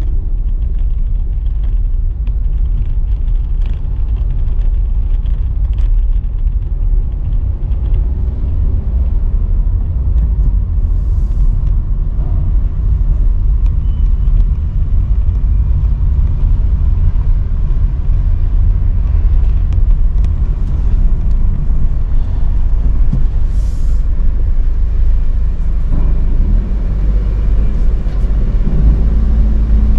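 Steady low rumble of a car driving slowly, heard from inside its cabin.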